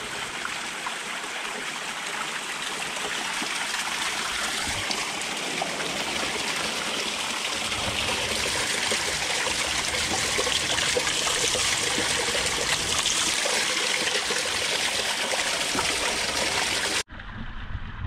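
Spring water trickling and splashing down a rock face in a small waterfall, a steady rush of running water that slowly grows louder. About a second before the end it cuts abruptly to a quieter, duller flow.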